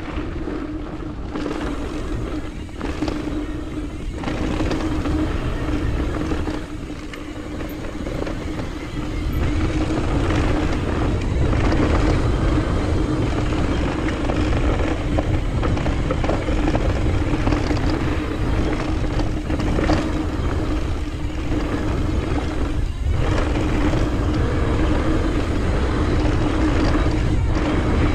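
Mountain bike riding a downhill dirt trail, heard close on the bike or rider: a continuous rush of wind and tyre noise that grows louder about nine seconds in. Over it runs a steady buzzing tone that breaks off briefly near the end.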